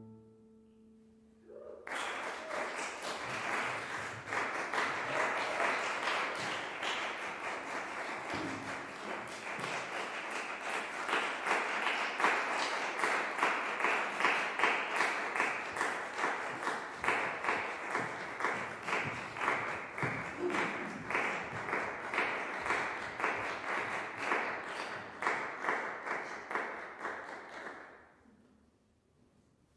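Audience applauding, a dense patter of many hands that starts about two seconds in after a brief hush, holds steady, then fades out near the end.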